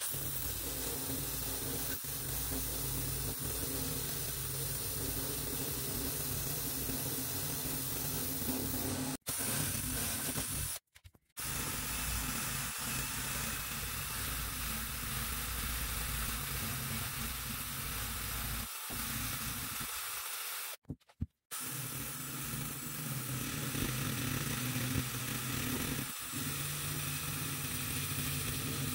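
Cordless drill spinning a brass wire brush against the rusty steel end cover of a small electric pump motor, scouring off rust: a steady scratchy hiss over the hum of the drill motor. It breaks off briefly three times.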